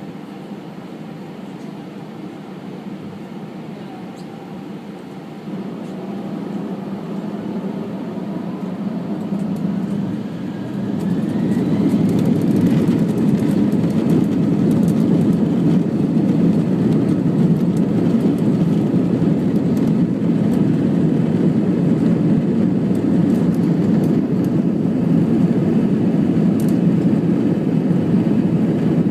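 Airbus A319 jet engines heard from inside the cabin, spooling up for takeoff. A rising whine builds from about five seconds in. By about twelve seconds it settles into a loud, steady roar at takeoff thrust, with the rumble of the takeoff roll.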